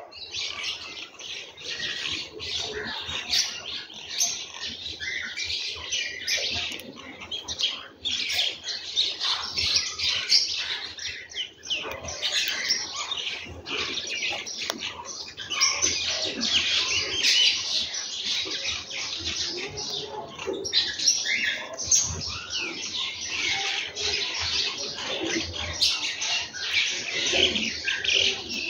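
A flock of house sparrows chirping, many short calls overlapping without a break, with scattered clicks and brief wing flutters among them.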